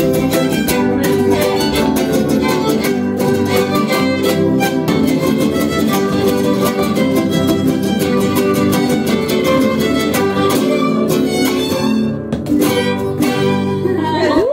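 Traditional Veracruz folk music played live on string instruments, with quick, steady strumming under a melody line.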